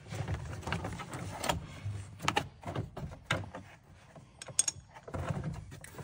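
Hand-handling of a vehicle's plastic interior trim panel and seat-belt hardware, with scattered sharp clicks and knocks over low rubbing and rustling.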